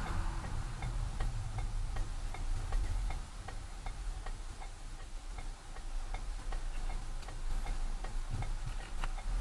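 Car's turn-signal indicator ticking steadily in the cabin, about two to three clicks a second, over low road and engine rumble as the car slows for a turn.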